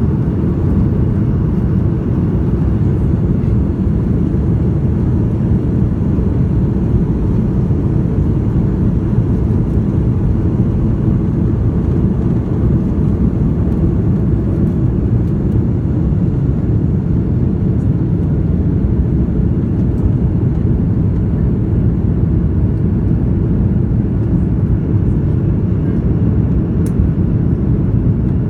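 Airbus A330 airliner's twin jet engines at takeoff thrust, heard inside the cabin over the wing: a loud, steady deep noise through the takeoff roll, lift-off and initial climb.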